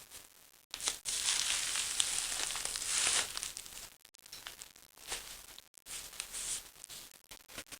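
Crinkling and rustling of bubble wrap and a paper napkin lure bag as a cat chases and pounces on it. The crinkling starts suddenly just under a second in and is loud for about two and a half seconds, then goes on as softer, scattered crinkles.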